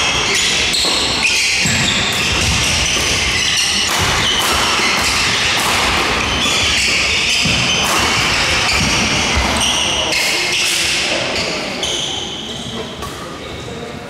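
Badminton doubles rally on a wooden court in an indoor sports hall: rackets striking the shuttlecock, with shoes squeaking and thudding as players move. The play dies down near the end.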